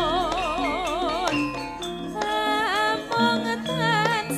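A female sinden singing Javanese song through a microphone with a wide, even vibrato on her held notes, over gamelan accompaniment.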